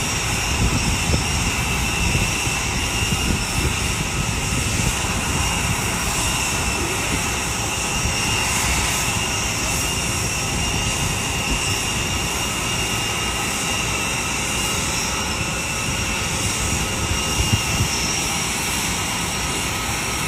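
Jet turbine noise from the parked Boeing VC-25 (Air Force One), a steady rushing noise with a high whine that holds unchanged throughout.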